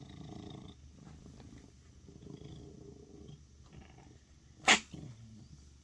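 A pet with a low rumbling, rasping breath, then one sharp, loud sneeze about three-quarters of the way through.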